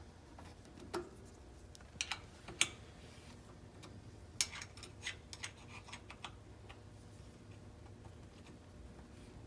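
Light, irregular metal clicks and ticks of an Allen key working in a shoulder bolt on a longarm quilting machine's encoder bracket as the bolt is threaded in. The sharpest click comes about two and a half seconds in, then a looser run of ticks follows a couple of seconds later.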